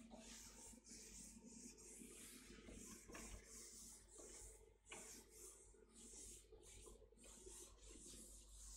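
Faint, repeated swishing of a board duster wiped back and forth across a chalkboard, about two to three strokes a second.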